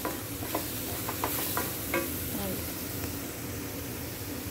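Thick chutney paste sizzling in a metal kadai while a wooden spatula stirs and scrapes through it. The chutney is nearly done: it has stopped sticking to the pan and is releasing its ghee.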